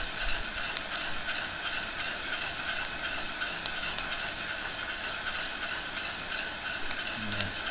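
Heat gun blowing steadily into a pot of coffee beans being stirred with a metal spoon, with scattered sharp cracks through it: the beans' second crack, a campfire-like crackling.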